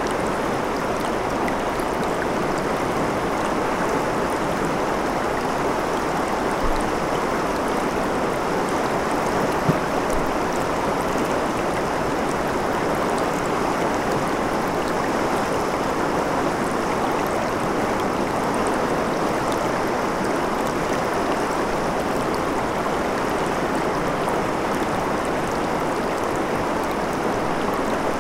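Shallow rocky river running over stones and around boulders: a steady rushing, babbling flow of water.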